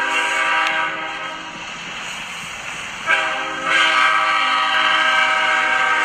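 Train horn blowing two blasts of a multi-tone chord: the first cuts off about a second in, and the second starts sharply about three seconds in and holds to the end, as the train approaches. The quieter running noise of the train fills the gap between blasts.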